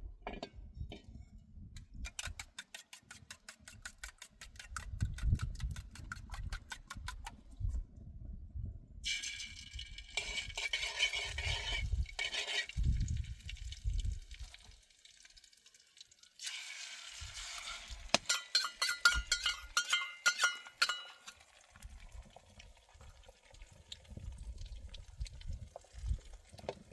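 Kitchen work with metal pots and dishes and liquid: a fast, even scraping for several seconds, then splashing and pouring, then metal clinking with a ringing tone.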